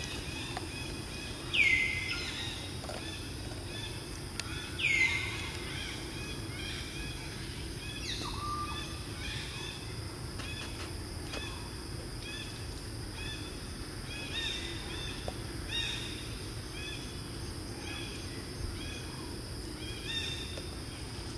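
Birds calling outdoors: two loud whistles sliding steeply downward, about two and five seconds in, and a falling call near eight seconds, then a long run of short repeated chirps, about one and a half a second, over a steady background hum.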